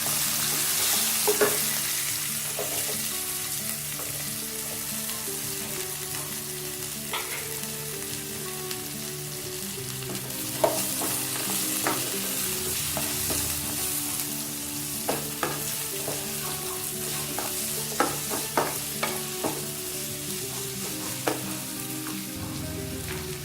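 Chopped onions frying in hot oil with whole spices: a sizzle that is loudest just after they go in, then settles, with scattered clicks and scrapes of a spatula stirring against the pan.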